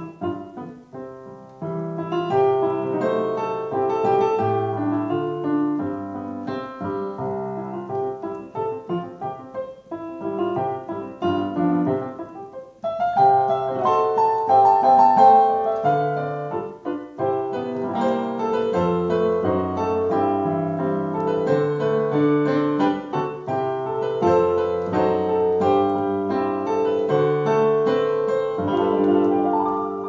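Piano music: a melody over lower notes, getting louder and fuller about halfway through.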